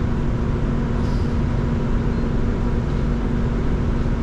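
Irizar ie tram battery-electric bus under way, heard from inside the cabin: a steady running noise with a constant low hum.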